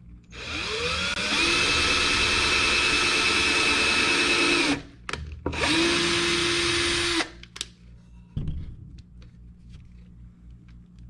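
Power drill spinning up with a rising whine, running steadily for about four seconds, stopping, then running again briefly for about a second and a half. A few clicks and a knock follow as it is set down or the wood is handled.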